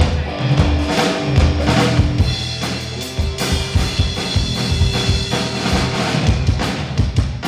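Live drum kit played loud through a PA during a band's sound check: rapid kick, snare and cymbal hits with a held instrument note underneath. The drumming stops abruptly at the end.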